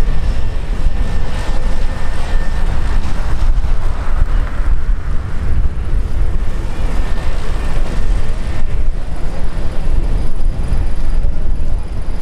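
Loud, steady aircraft engine noise with a deep rumble and a faint high whine at times.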